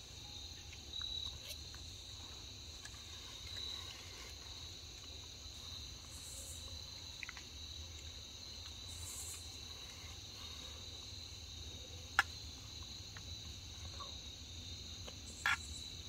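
Crickets and other insects chirping in a steady, high-pitched chorus, with a single sharp click about twelve seconds in.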